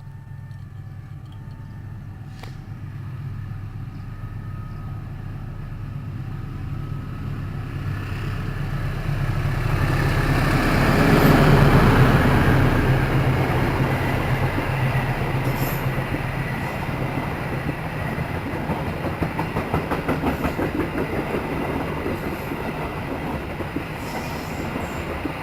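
A diesel-hauled train passing close by. The locomotive's engine hum grows louder to a peak about halfway through, then the cars go by with a rapid rhythmic clickety-clack of wheels over the rails.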